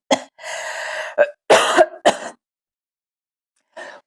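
A person in a fit of dry coughing: several short, harsh coughs around one longer rasping throat-clear, stopping about two and a half seconds in.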